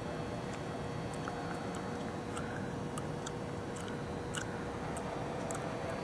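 Steady hum and hiss of a large, empty domed stadium, with a faint steady tone and scattered light clicks.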